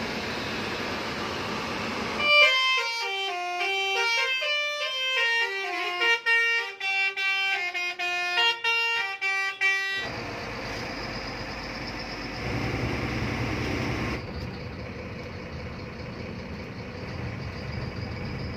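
Bus engine and road noise heard from inside the cabin, interrupted from about two to ten seconds in by a clean melodic tune of short stepped notes going up and down, like a musical horn.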